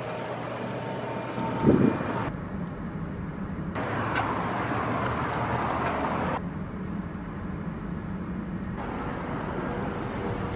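Steady outdoor background noise of a parking lot, like distant traffic, with a single bump about two seconds in.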